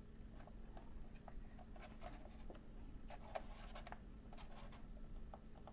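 Faint, irregular clicks and taps of hard plastic toy parts being handled, a little louder around the middle.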